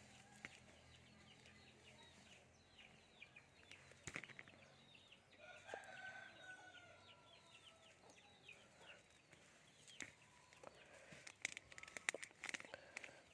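A rooster crows once, faintly, a single drawn-out call that starts about five and a half seconds in and sinks slightly in pitch at the end. Around it runs a quick series of faint high chirps, and a few sharp clicks come near the end.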